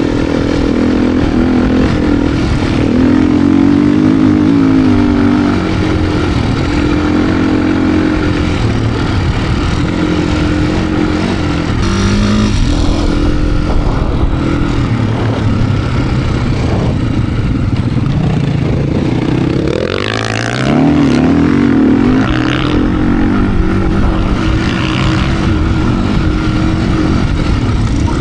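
2025 Beta RR390 X-Pro's single-cylinder four-stroke engine running hard through deep sand with constant throttle changes, its pitch rising and falling. About twenty seconds in the engine drops off briefly, then revs back up.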